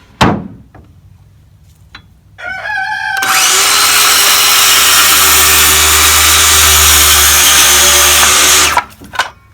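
A sharp knock, then an electric power tool's motor winds up and runs loud and steady under load for about five and a half seconds before cutting off, used on pine 1x4 and 1x6 boards.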